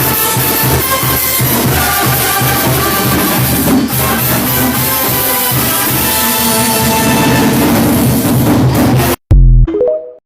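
Cumbia band music with a steady drum-kit and bass beat, which cuts off abruptly about nine seconds in. A short loud low thump and a brief rising tone follow.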